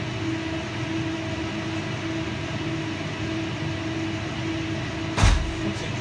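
Vibration test shaker running a Z-axis test on a mounted optical grism: a steady mechanical hum with a constant tone over rushing noise. A single low thump about five seconds in.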